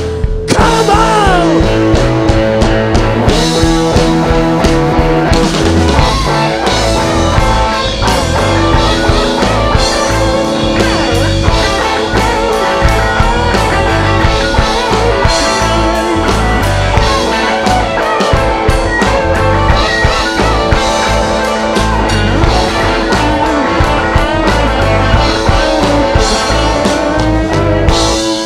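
Rock band playing live: guitar over a steady drum kit beat.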